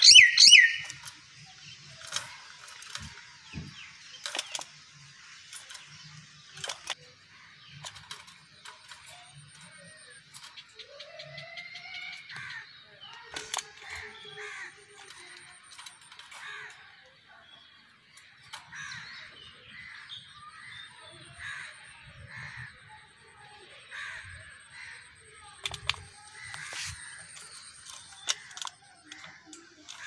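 Hill myna giving one loud call in the first second, then a long run of short, quieter notes with a few clicks between them.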